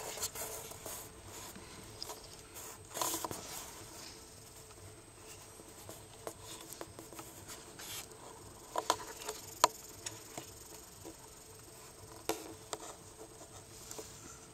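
Rustling, scraping and scattered sharp clicks and taps from someone moving about in an attic and handling the camera among wooden joists and fibreglass insulation. The loudest taps come around 3 seconds in and again twice around 9 to 10 seconds in.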